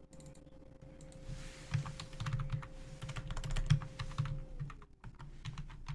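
Typing on a computer keyboard: a quick, uneven run of key clicks lasting about three seconds.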